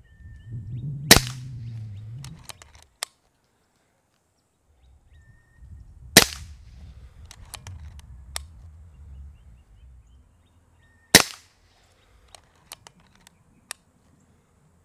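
Three shots from a Kral Puncher Breaker .22 PCP air rifle, about five seconds apart, each a sharp crack. Each crack is followed by a few light clicks as the action is worked to load the next pellet.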